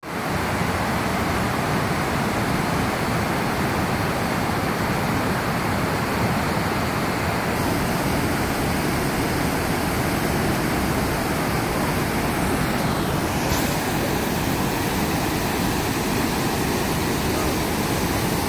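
Youghiogheny River whitewater pouring over a waterfall: a steady rush of falling water.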